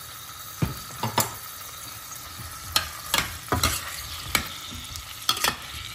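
Baby potatoes sizzling steadily in olive oil and garlic butter in a pan as they are stirred, with several sharp knocks of the utensil against the pan.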